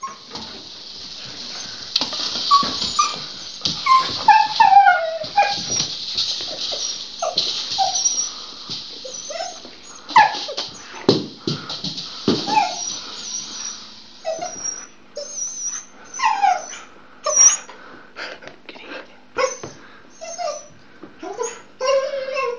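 A dog whining and yipping excitedly over her rattle ball, many short cries sliding up and down in pitch, with sharp clicks and rattles from the ball, thickest about halfway through.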